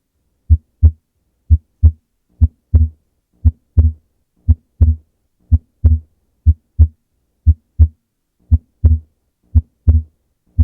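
Human heart sounds beating at about one beat a second, each beat a lub-dub pair of low thuds (S1 then S2). On some beats the second sound is broader and split into two close components, aortic then pulmonary valve closure (A2–P2), and on others it comes as a single sound. This is normal physiological splitting of S2, which widens with inspiration.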